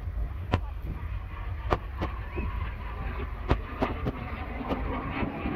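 Distant display aircraft flying overhead: a low, steady engine rumble with a scatter of sharp clicks over it.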